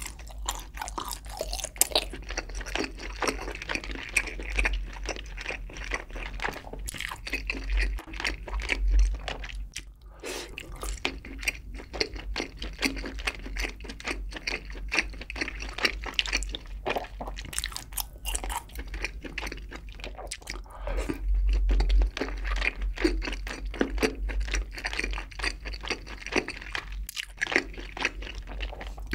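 Close-miked chewing of spicy braised chicken with Spam and sausage (budae jjimdak), a steady run of small crunches and clicks from the mouth.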